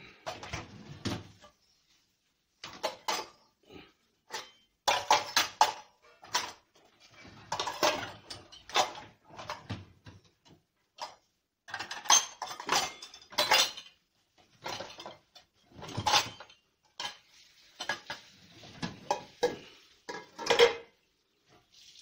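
Stainless steel pots, plates and bowls clinking and clattering against each other and the wire racks of a dishwasher, in irregular bursts of knocks and rattles.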